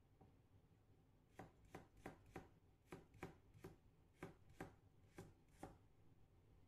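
Kitchen knife cutting a carrot on a plastic cutting board: faint, even chopping strokes, about eleven at roughly three a second, starting about a second and a half in and stopping near the end.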